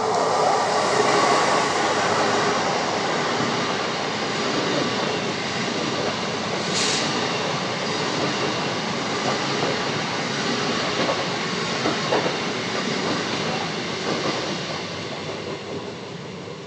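SBB RABe 501 Giruno electric multiple unit passing close by: a steady rolling rush of wheels on rail, loudest near the start and fading as the train draws away. A brief high hiss comes about seven seconds in.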